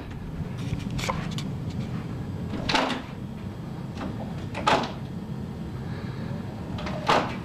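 A door knocking in its frame four times, about two seconds apart, as a cat tries to open it.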